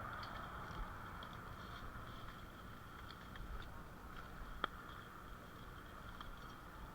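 Faint, scattered light footsteps and rustling over a steady high background hiss, with one sharp click about four and a half seconds in.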